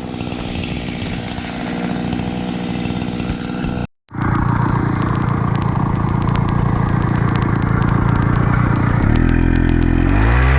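Jonsered two-stroke chainsaw running steadily at a constant speed. The sound drops out for a split second about four seconds in, then the saw comes back louder. Music with stepped notes starts near the end.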